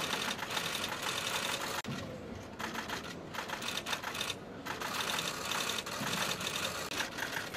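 A dense, rapid patter of many small clicks, going on steadily throughout.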